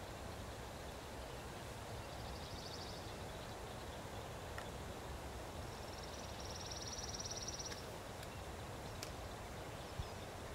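A high, fast trill from a small animal, heard twice: a short one about two seconds in and a longer one of about two seconds near the middle. It sits over a steady low background rumble, with a few faint clicks.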